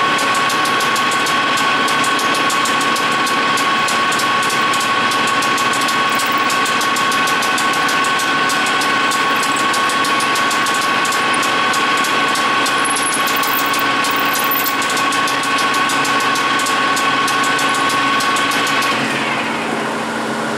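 Capstan lathe running with a 5.5 mm drill fed into the spinning work, a loud steady machine whine with a fast fine ticking. Near the end the spindle is switched off and the whine falls away as it runs down.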